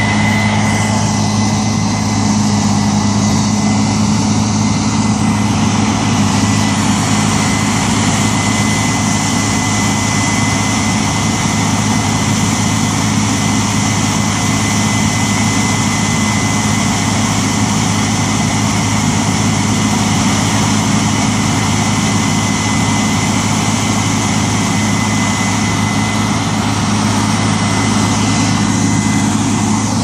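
Case IH 7120 combine harvesting corn: its engine and threshing machinery run steadily and loudly at close range, with a steady high whine that fades near the end.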